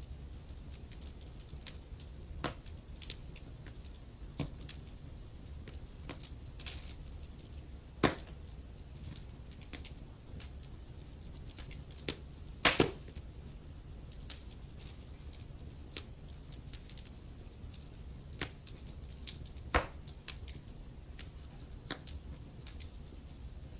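Wood fire in a fireplace crackling, with irregular sharp pops, a few louder ones, over a low steady rumble.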